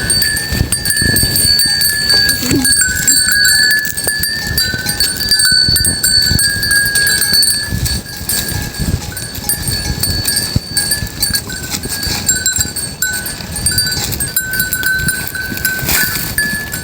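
Free-grazing goats, with a steady ringing of bells and the shuffling and knocking of the animals moving.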